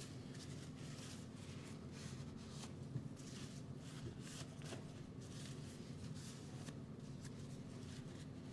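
Cloth rag rubbing over a freshly glued wooden drawer joint, wiping off squeezed-out glue: faint repeated short swishes over a low steady hum.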